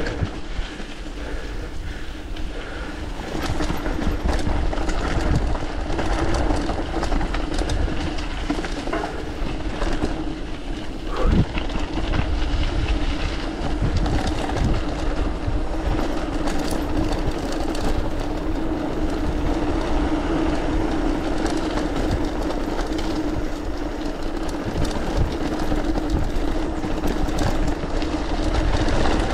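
Mountain bike being ridden over a rough surface: tyres rolling with a steady hum, frequent rattling clicks and knocks from the bike, and a low rumble of wind on the microphone. The hum and rattle grow louder about three seconds in.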